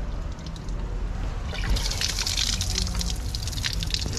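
Water splashing and trickling from the spout of a cast-iron hand-lever well pump as its handle is worked, loudest from about one and a half seconds in to about three seconds, with scattered drips.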